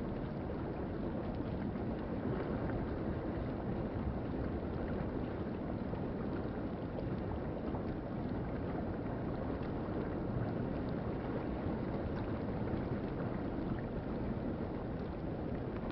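Shallow river water rushing over rocks: a steady, even wash of flowing water.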